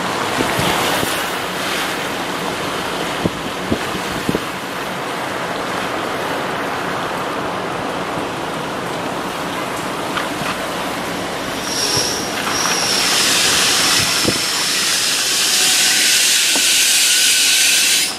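Steady hiss of car tyres rolling on wet pavement, heard from inside the moving car, with a few light clicks. About twelve seconds in it swells louder and brighter with a thin high whine, then stops suddenly.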